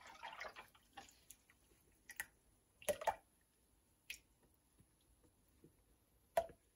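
Liquid oils poured from a plastic jug into a stainless steel pot of melted oils: a faint trickle for about the first second, then scattered drips and a few light taps as the jug runs empty.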